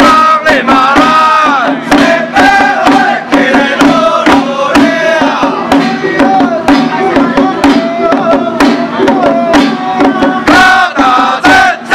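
A Taiwanese xiao fa ritual troupe chanting loudly in unison while beating handheld paddle drums in a steady rhythm.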